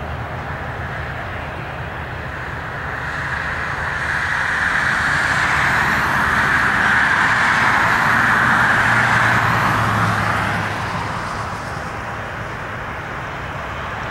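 A car passing close by on the road, its tyre and engine noise swelling over several seconds and fading again, over a steady background of distant jet engine noise from an Airbus A320 on the runway.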